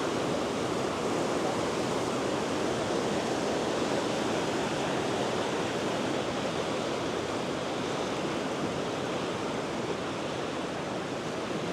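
River running high over rocky rapids after rain: a steady, even rush of water.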